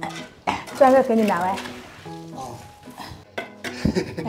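Clinks, scrapes and a few sharp knocks near the end as red bricks are set and worked into wet mortar with a metal hand tool, over light background music.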